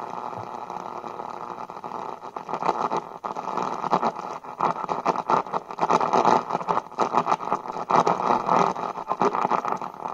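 Supersonic SC-3201BT boombox's AM radio giving dull, muffled hiss and crackling static as the tuning dial is swept across the AM band. The static gets choppier and more uneven from about two seconds in.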